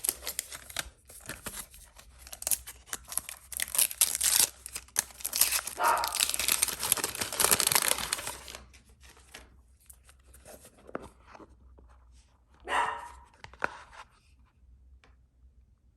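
Packaging being crinkled and torn open, dense and continuous for about eight seconds, then only occasional rustles. A dog barks once, about thirteen seconds in.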